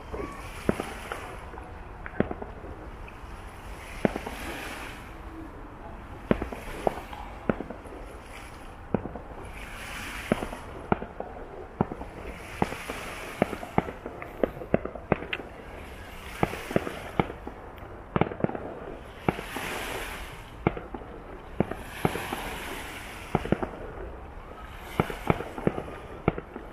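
Fireworks display: sharp bangs and pops going off at irregular intervals, sometimes several in quick succession, with stretches of crackling between them.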